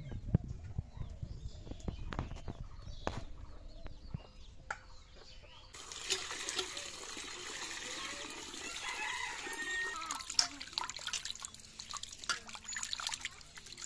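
Water pouring from a hand pump into a steel bowl, and hands sloshing and splashing raw chicken pieces in the water, from about six seconds in. Domestic chickens cluck in the background.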